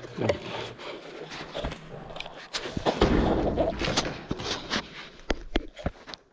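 Scuffing and handling noise: a run of sharp clicks and knocks with scraping, loudest about three to four seconds in.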